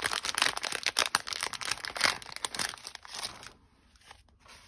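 Clear plastic packaging crinkling and crackling as it is handled and opened, with many small crackles; it dies down after about three and a half seconds, leaving a few faint rustles.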